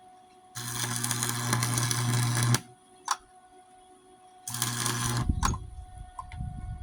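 Electric welder arc crackling while welding a crack in a steel mower deck, in two bursts: about two seconds, then under a second, each with a steady hum beneath the crackle. Short clicks follow each burst.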